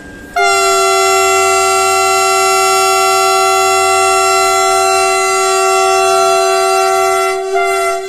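Vande Bharat Express trainset's horn sounding one long, loud blast of several notes at once, held for about seven seconds with a brief change in pitch near the end; it is the horn given as the train sets off from the platform.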